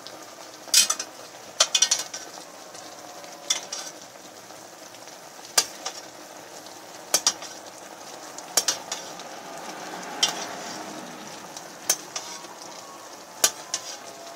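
A large metal spoon clinking and scraping against an enamelled pot, about ten sharp clinks every second or two, as it bastes a whole chicken, over a steady sizzle of the boiling sweet adobo sauce.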